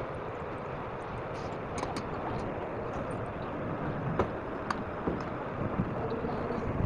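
Corn fritters frying in hot oil in a wok: a steady sizzle, with a few light clicks of a spatula against the pan as oil is spooned over them.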